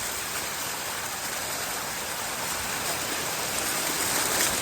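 Steady rush of water from a small waterfall, growing slightly louder near the end.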